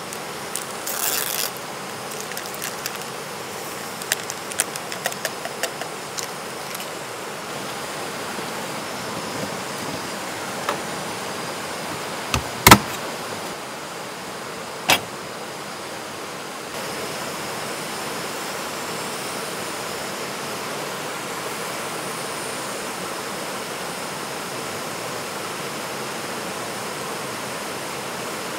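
A rocky stream rushing steadily. Light clicks and clatter of camp cooking gear are handled in the first several seconds, and two sharp clicks come near the middle. The water gets a little louder in the second half.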